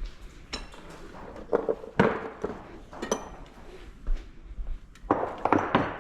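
Small metal parts clinking and clattering, handled and shuffled in a series of sharp knocks, the busiest run near the end: someone rummaging through hardware in search of a bolt.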